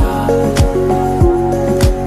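A song with a steady beat, a drum hit a little under twice a second under sustained melodic notes.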